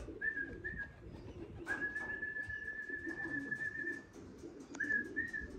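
Steady one-pitch whistling used to call racing pigeons down to the loft: two short whistles, a long held whistle, then two more short ones, over the low cooing of pigeons.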